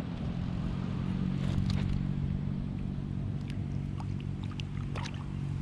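A steady low motor hum, with a few short clicks and small water sounds in the second half.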